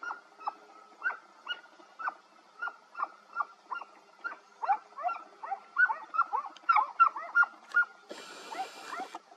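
Hunting dogs barking and yelping on a wild boar drive: a rapid string of short, high barks, several a second, with several dogs overlapping more densely in the middle. A brief rush of noise comes near the end.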